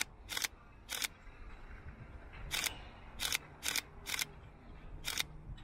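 Camera shutter clicking, single frames fired at uneven intervals, about seven clicks in a few seconds.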